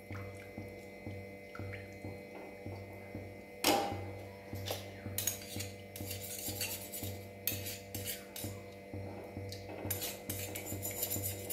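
Steel ladle stirring dal in a stainless steel pan, scraping and clinking against the metal again and again, with one sharper clink about four seconds in.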